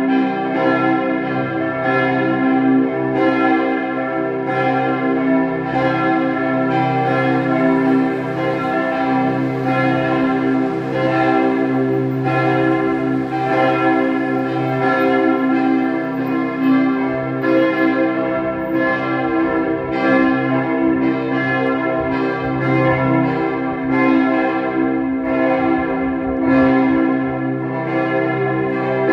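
Church bells ringing continuously, their strokes overlapping and each ringing on into the next.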